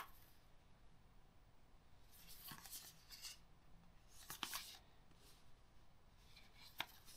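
Faint rustling and scraping of a small cardboard product box being handled and opened, in three short bouts of quick scuffs and clicks.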